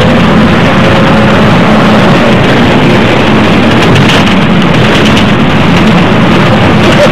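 Loud, steady engine drone and rumble of a double-decker bus driving along, heard from inside its passenger cabin.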